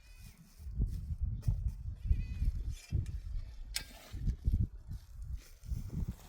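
Goats bleating faintly, a couple of short calls, over a low rumble. A single sharp click about two-thirds of the way through.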